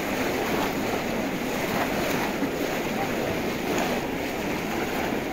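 Large crowd wading and splashing through shallow pond water while fishing with bamboo plunge baskets: a steady wash of splashing with faint distant voices mixed in.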